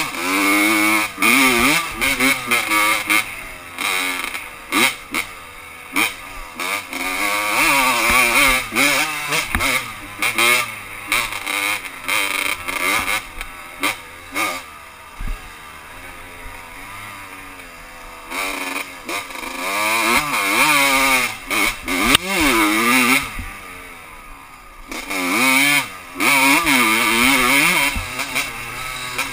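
1987 Honda CR125's single-cylinder two-stroke engine revving up and down as the bike is ridden, its pitch rising and falling with each burst of throttle, with quieter off-throttle stretches. Frequent short knocks break through the engine sound.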